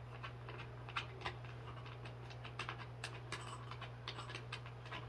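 Scattered light clicks and scrapes of bolts and metal hardware being fitted by hand into a steel workout bench frame, over a steady low hum.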